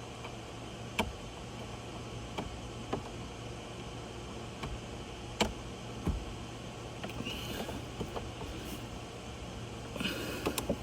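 Scattered light clicks and knocks, about half a dozen, from plastic glove-box parts and retaining pins being handled in a car's dash, over a steady low hum.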